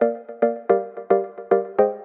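Electronic music: a repeating synth melody of short plucked notes, each struck sharply and fading quickly, in a quick even rhythm of about four notes a second.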